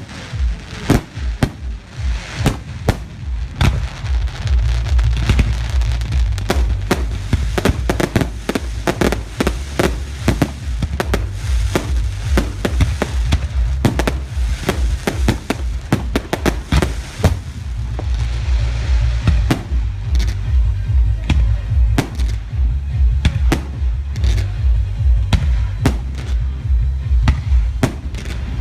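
Fireworks display: a dense, rapid run of bangs and crackles from bursting shells that keeps going without a break.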